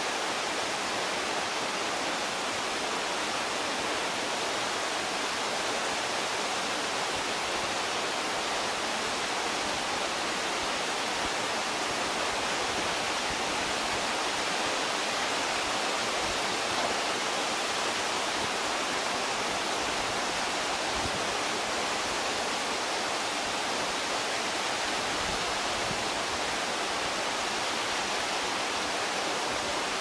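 Waterfall pouring into a rock pool: a steady, unbroken rush of falling water.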